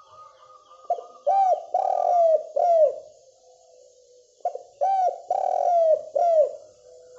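Spotted dove (derkuku) singing: two phrases of about four coos each, a few seconds apart, with each coo bending up and then falling. A faint, rapid repeated chirp from another bird runs underneath.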